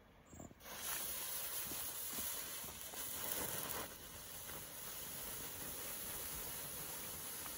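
Comet 'Geisterschreck' mini volcano fountain, a category F1 firework, hissing steadily as it burns and sprays sparks. The hiss starts about half a second in, just after it is lit, and eases slightly about four seconds in.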